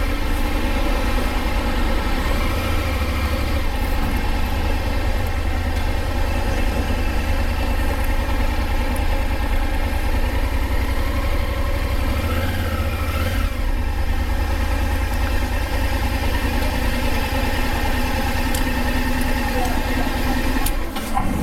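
Motorcycle engine running steadily at low revs under a heavy low rumble, its pitch briefly rising and falling about halfway through.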